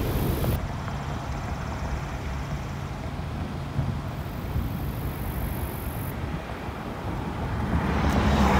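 Wind rumbling on a phone's microphone outdoors in a storm. The rumble is steady and grows louder near the end.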